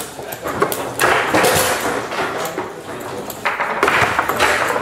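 Table-football ball and rods on a Tecball table in play: a run of sharp, irregular clacks and knocks as the ball is struck and trapped by the plastic men.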